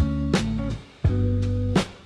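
Background music: held, bass-heavy chords with sharp percussive hits, breaking off briefly about a second in before the next chord starts.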